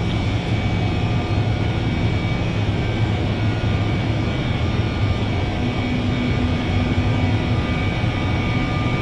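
KORAIL Class 8200 electric locomotive moving slowly along the platform at the head of a passenger train, giving a steady hum with thin whining tones above it from its traction and cooling equipment.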